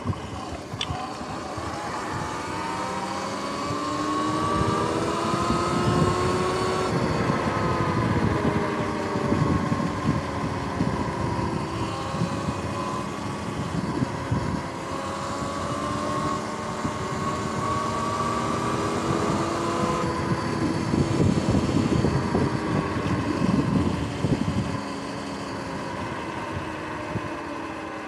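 Sur-Ron X electric dirt bike's motor whining, its pitch rising and falling several times as the bike speeds up and slows down, with wind buffeting the microphone.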